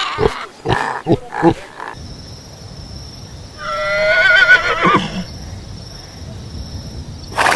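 Short pig grunts for the first two seconds, then a horse whinnying once: a loud, wavering call about a second and a half long that drops in pitch at the end, over a steady high hiss. A brief burst of sound near the end.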